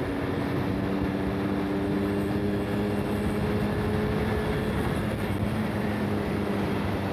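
Simson Schwalbe KR51's 50 cc single-cylinder two-stroke engine running at a steady cruising speed, its pitch holding level, under a constant rush of wind and road noise.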